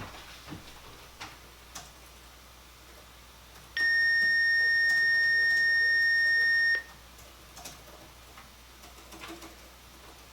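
A single steady, high electronic beep tone lasting about three seconds, starting a few seconds in and cutting off cleanly. A few faint clicks come before and after it.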